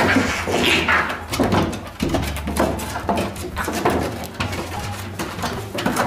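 Two domestic cats fighting: repeated short yowls and screeches over scuffling and knocks of their bodies on wooden deck boards.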